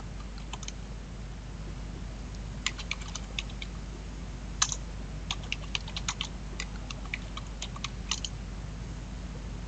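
Typing on a computer keyboard: scattered keystrokes in irregular clusters, some louder than others, over a steady low hum.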